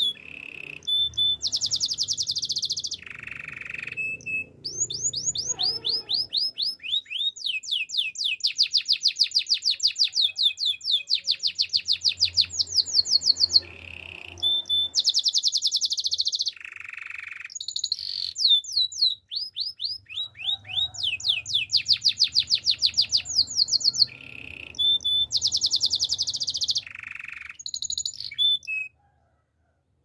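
Male domestic canary singing: a long song of fast trills, each phrase a rapid run of repeated notes, some high and some lower, changing every second or two. The song stops abruptly near the end.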